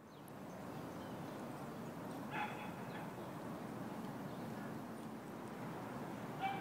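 A dog gives a short yip about two and a half seconds in and another near the end, over a steady background hiss of outdoor noise.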